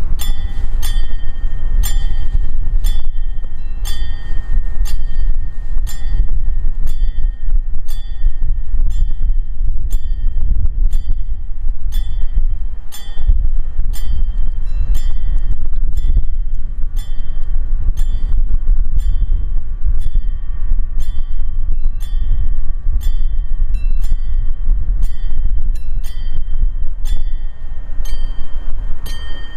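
A railway warning bell rings in steady, evenly spaced strokes, about two a second, each stroke ringing briefly. Under it runs a loud, steady low rumble.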